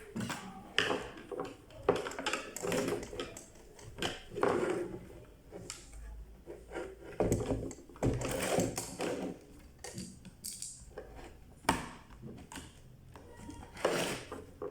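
Irregular clicks, taps and scraping of small hard parts being handled and fitted, as on a clothes iron being worked on by hand.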